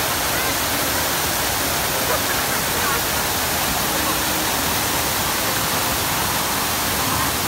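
Water from a large fountain pouring steadily over the rim of its round basin and splashing into the pool below: an even, unbroken rush.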